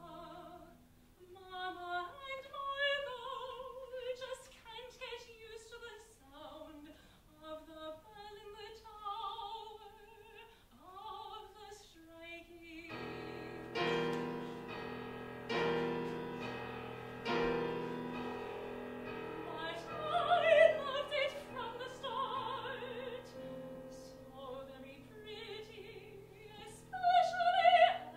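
A soprano singing opera with piano accompaniment. About halfway through, the piano comes in with loud repeated chords, struck about every second and a half, like tolling bells, and the voice returns over them.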